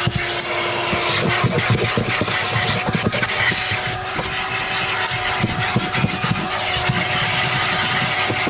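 Vacuum cleaner running with a steady hum and rush of air while its brush nozzle is scrubbed back and forth over carpet, the bristles rasping on the pile in short repeated strokes.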